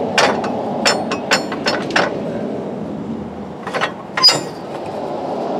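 Metal parts of a mid-mount mower deck's hanger linkage clinking and clanking as they are worked into place under a tractor: a handful of sharp knocks with a bright ring, the loudest about four seconds in.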